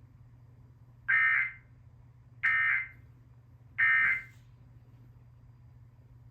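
Emergency Alert System end-of-message signal: three short bursts of SAME digital data tones, evenly spaced a little over a second apart, marking the end of the alert message.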